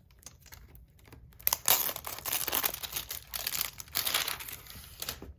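Packaging crinkling and rustling as it is handled for unboxing: a few faint clicks, then a run of crackly crinkling from about a second and a half in that lasts some three and a half seconds.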